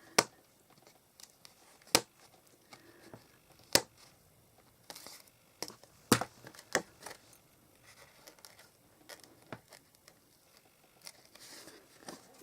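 Paper and card being handled and pressed down on a craft table: soft rustling between several sharp taps, the loudest four in the first six seconds.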